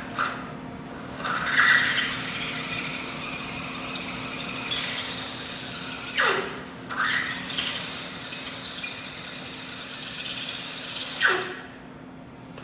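Electric drill driving a reamer through the ball-joint hole of a front suspension spindle, with a high-pitched screech as it cuts. It is reaming the taper so the upper ball joint will fit. The drill stops and winds down about six seconds in, starts again, then stops and winds down near the end.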